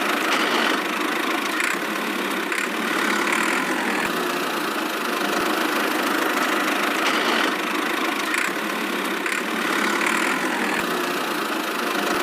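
A small engine running steadily at an even pace, the sound of a miniature DIY tractor at work.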